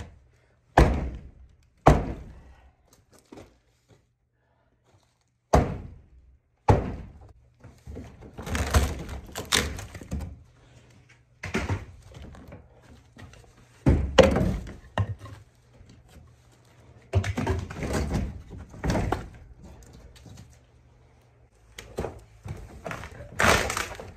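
Sledgehammer blows against heavy timber at the base of a barn wall: a handful of separate, sharp thuds spaced seconds apart, with bouts of scraping and knocking as rotten sill debris is cleared out between them.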